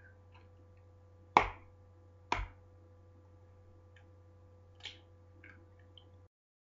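A raw egg rapped twice against the rim of a mixing bowl to crack it: two sharp cracks about a second apart, followed a couple of seconds later by fainter clicks as the shell is pulled apart. The sound cuts out completely near the end.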